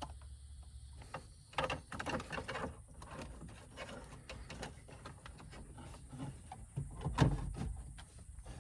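Rustling, clicking and knocking of wiring and plastic dash parts being pushed into the dash behind a radio. There is a cluster of rustles and clicks early on and a louder knock about seven seconds in.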